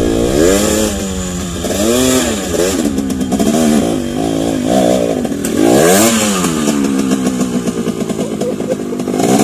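Dirt bike engine revving hard and dropping back again and again, a surge every second or two, as it works up a slippery, muddy climb.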